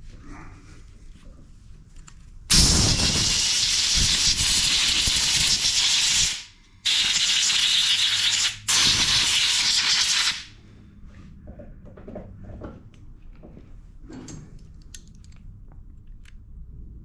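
Compressed air from a handheld blow gun blasting dirt off a small-engine carburetor in three bursts: a long one of about four seconds starting a couple of seconds in, then two shorter ones, stopping about ten seconds in. Afterwards faint clicks of the carburetor being handled.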